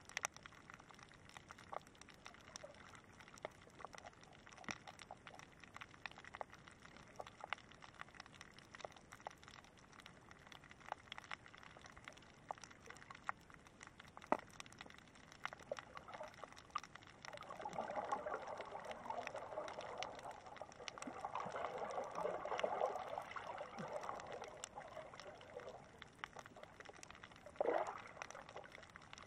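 Shallow water heard underwater: faint water noise with many scattered sharp clicks throughout. A bit over halfway through comes a louder stretch of rushing water for several seconds, and near the end a short surge.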